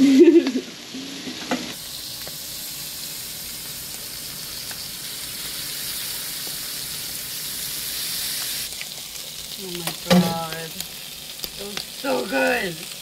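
Octopus pieces sizzling on a hot grill plate: a steady frying hiss.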